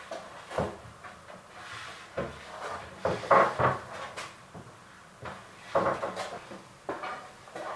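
Irregular wooden knocks and clunks, several within a few seconds, as timber pieces of a workbench are handled and set down; the loudest comes about three and a half seconds in.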